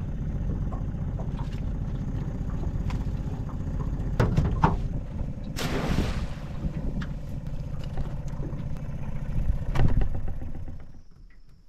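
Small outboard motor idling steadily under a knock and clatter of crab pot gear on an aluminium dinghy. About six seconds in, a crab pot is thrown overboard with a splash.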